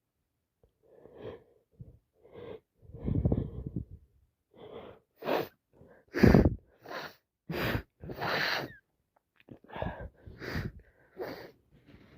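A woman sneezing over and over, wet, congested sneezes with gasping breaths between, from a head cold that has turned into sinusitis. About a dozen short bursts after a second of quiet, the loudest about six seconds in.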